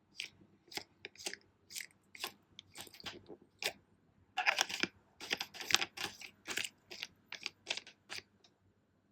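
Plastic water bottle cap being twisted and handled, giving a run of short crackling clicks. They come about two a second at first, crowd together in the middle, and stop shortly before the end.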